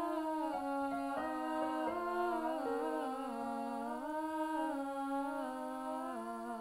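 Background music: a wordless hummed melody, one voice holding long notes that step slowly up and down.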